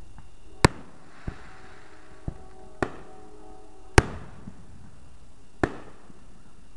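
Fireworks going off: about six sharp bangs at uneven intervals, the loudest about four seconds in.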